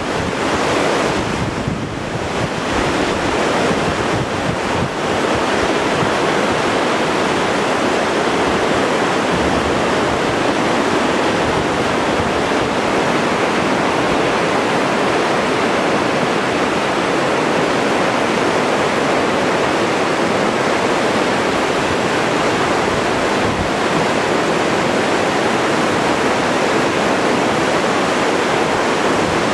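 Swollen, muddy floodwater rushing and churning over broken concrete and debris in a river channel: a loud, steady rush of water. Some uneven wind buffeting on the microphone comes and goes in the first few seconds.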